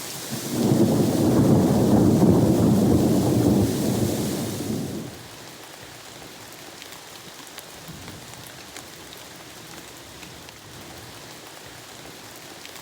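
A roll of thunder rumbles through the first five seconds over steady heavy rain, then fades. After that the rain keeps up as a faint steady hiss with scattered drops ticking.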